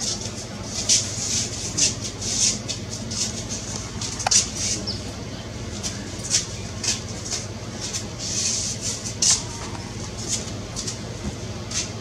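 Irregular short, high-pitched chirps, several a second, from birds, over a low steady hum.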